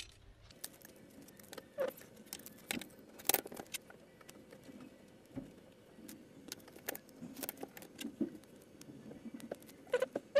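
Scattered light clicks and taps from handling a roll of foam double-sided tape and a small aluminium water block over an opened laptop's plastic base.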